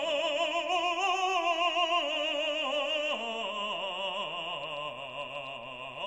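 Background music: an operatic singing voice holding a few long notes with wide vibrato, the pitch shifting about once a second.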